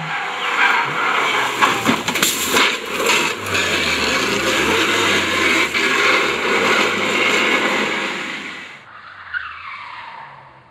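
Race car skidding and sliding: a loud rush of tyre noise with scattered knocks through it, which dies away about nine seconds in.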